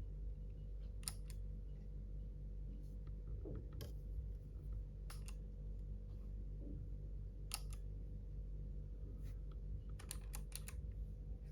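Keychron K3 low-profile mechanical keyboard with clicky blue switches, keys pressed one at a time, a sharp click every second or two, then a quick run of several clicks about ten seconds in, over a steady low hum.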